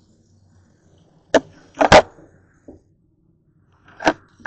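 Several sharp knocks and clatters of kitchen items being handled at a sink, the loudest about two seconds in. The last knock, near the end, comes as a white plastic colander is moved.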